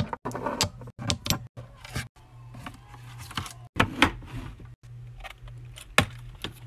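Long acrylic nails tapping and clicking on plastic gel-polish bottle caps and a nail-curing lamp: a string of sharp separate clicks over a low steady hum, the loudest about four and six seconds in. The sound drops out briefly several times.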